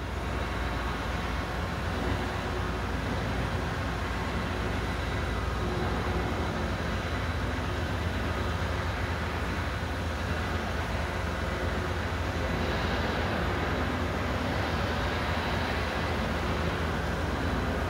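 Several stiff push brooms scrubbing a soaked, foamy silk carpet as water runs and splashes across it, making a steady noise of swishing bristles and flowing water.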